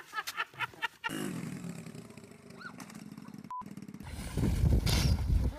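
Laughter for the first second, then a small motorcycle engine running with a steady low pulse. A short electronic beep sounds about three and a half seconds in, and from about four seconds the engine grows much louder.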